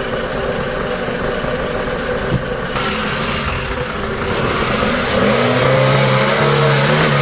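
An engine running, its pitch rising about five seconds in as it revs up and then holds.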